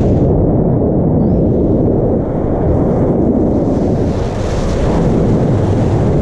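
Wind buffeting the camera's microphone while descending under a parachute canopy: a loud, steady, low rush of air with no let-up.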